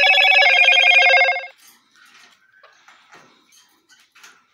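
A loud electronic ringing tone, several steady pitches fluttering rapidly together like a telephone ring, lasting about a second and a half and stopping abruptly, followed by faint scattered small chirps and ticks.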